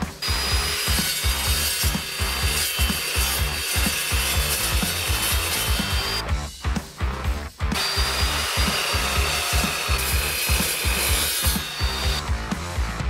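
Evolution S380CPS 15-inch dry-cutting chop saw, running a toothed carbide-tipped blade rather than an abrasive disc, cutting steel: first threaded rod, then flat bar. There are two cuts with a short break about six seconds in, each a harsh cutting noise with a steady high ringing tone, heard over background music with a steady beat.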